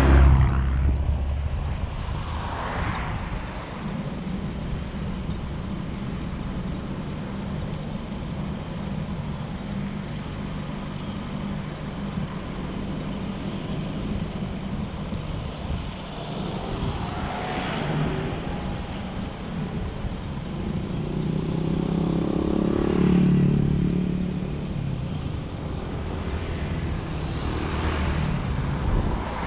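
A car idling while stopped in traffic, with a steady low engine hum. Other vehicles pass close by several times, and the loudest pass comes about three-quarters of the way through.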